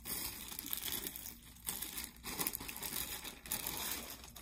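Packaging crinkling and rustling in irregular handling strokes as a baby's pajama set is pulled out and unwrapped.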